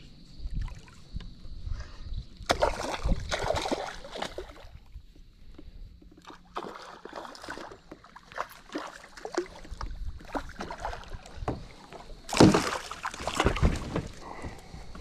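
A hooked snook splashing at the surface beside a kayak as it is played in and lifted aboard, with two louder spells of splashing, one about two and a half seconds in and one near the end.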